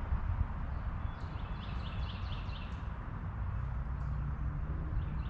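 A songbird singing a quick run of about six short, high, evenly spaced chirps, over a steady low rumble.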